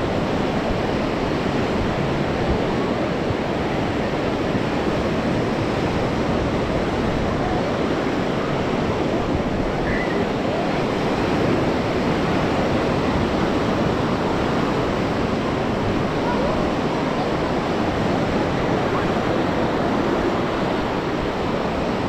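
Steady rush of sea surf and wind, with no single wave standing out.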